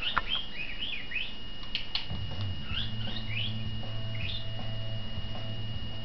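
Pet budgerigar chirping in short, quick notes that rise and fall, a run of them at first and more after a pause. A couple of sharp clicks about two seconds in.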